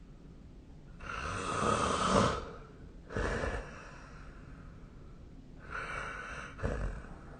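A sleeping person snoring. A long, loud snore comes about a second in and is followed by a shorter breath sound, and another snore begins near the end.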